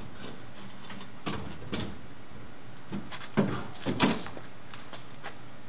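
Metal truck suspension parts knocking and clanking as they are handled under the rear axle: a handful of separate knocks, the loudest two about three and a half and four seconds in.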